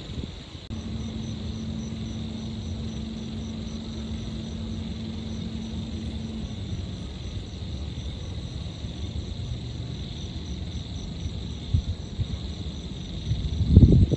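Night city ambience: a steady distant traffic rumble under insects chirping, one a steady high trill and one a pulsing high chirp. A low steady hum sits over the first half, and a louder low rumble swells briefly near the end.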